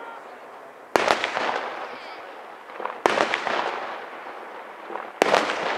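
Three loud aerial firework shells bursting about two seconds apart, each bang followed by crackling and a fading rumble.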